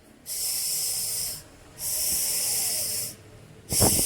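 A snake hissing: three long hisses of about a second each, separated by short pauses.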